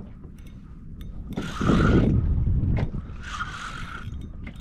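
Fishing reel being wound in bursts about two seconds apart while playing a hooked fish on a bent rod. Scattered short ticks and a steady low rush of wind and water against the kayak run underneath.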